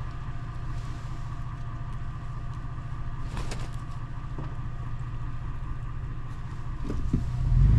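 Toyota FJ Cruiser's V6 engine and road noise while driving, a steady low drone that grows louder about seven seconds in.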